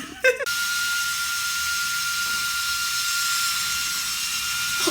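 Battery-powered bubble wand's small fan motor whirring steadily with a thin high whine. It starts about half a second in and cuts off near the end.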